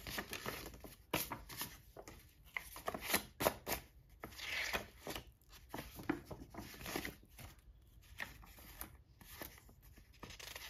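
Vintage paper greeting cards being handled: opened, closed and flipped over, giving a run of short papery rustles and light taps of card on card, with a longer rustle about four and a half seconds in.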